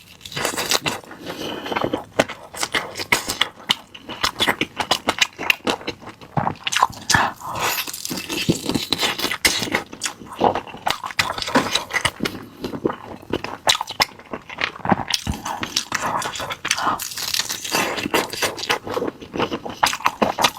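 Close-up biting and chewing of an air-fried chicken leg roll, its crisp roasted chicken skin crunching in a dense, irregular run of crunches and mouth clicks.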